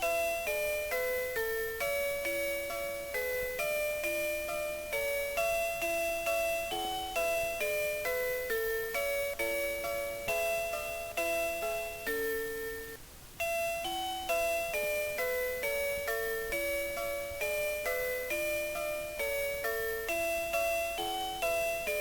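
Vtech Melodienbärchen toy bear playing a children's song as a simple electronic melody of chime-like single notes, with a short pause about halfway through before the tune carries on.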